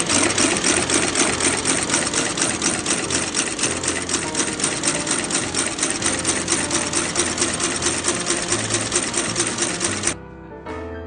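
Industrial outsole stitching machine running at speed, a rapid, even chatter of needle strokes as it stitches a new sole onto the boot's welt; it stops abruptly near the end.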